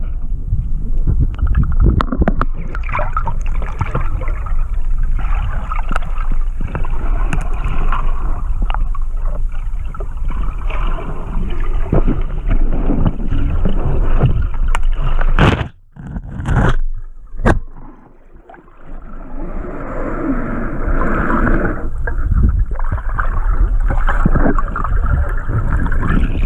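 Water gurgling and rushing with scattered knocks and scrapes, as picked up by a camera in the water during spearfishing. It drops away briefly about sixteen seconds in, then returns.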